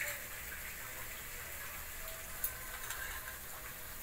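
Spiced onion-ginger-garlic masala paste sizzling and bubbling steadily in mustard oil in a kadhai as it fries until the oil separates, with one light click about two and a half seconds in.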